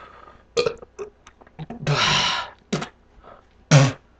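A man burping several times in short bursts, the last a short, deep burp near the end: carbonation gas after almost three cans of Sprite drunk with four bananas.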